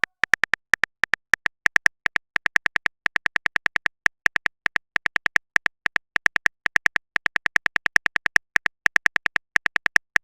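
A chat-story app's keyboard typing sound effect: rapid, identical clicks, about five or six a second in uneven runs, as a message is typed out.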